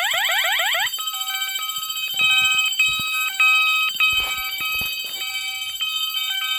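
Electronic fire alarm horn sounding off an alarm panel's bell circuit. It sounds a fast, repeating rising sweep, then about a second in switches to a steady high tone with lower tones stepping on and off in a repeating chime-like pattern, as its tone setting is changed. A few knocks from handling are heard in the middle.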